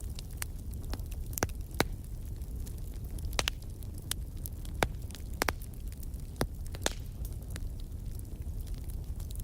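Wood fire burning in a fireplace: a steady low rumble of the flames with irregular sharp crackles and pops, a handful of them louder than the rest.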